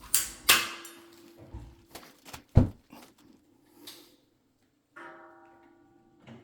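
Plumbing tools and metal pipe parts being handled and set down: a series of knocks and clicks, the loudest a dull thud about two and a half seconds in, then a short metallic ring about five seconds in that fades away.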